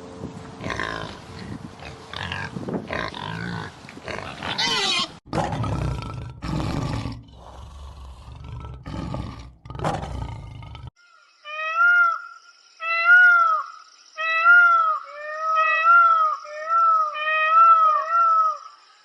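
A large animal roaring and growling in rough, noisy calls for about eleven seconds. It cuts off abruptly into a clean series of short, high, pitched calls, each rising and falling, about one a second.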